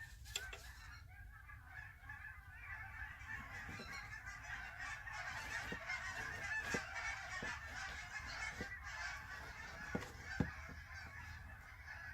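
A flock of geese honking continuously, with a few light knocks.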